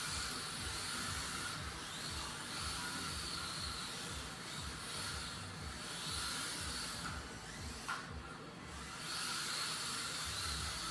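Mini-Z MRD RC drift car's small electric motor whining as it drives around the track, the whine rising and falling in pitch with the throttle over a steady hiss.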